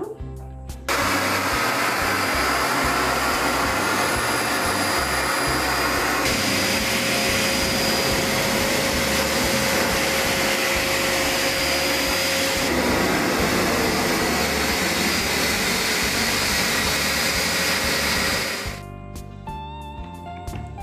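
Eureka Forbes 20-litre wet and dry drum vacuum cleaner running steadily with its wet-floor nozzle, sucking water off a floor. The motor noise comes in abruptly about a second in and cuts off near the end, leaving background guitar music.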